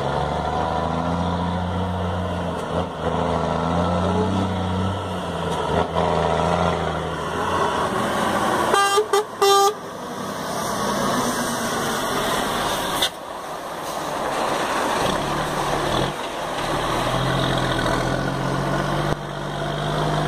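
Scania 420 truck's straight-six diesel engine running with a deep rumble, with two short horn toots about nine seconds in. The engine note climbs in the second half.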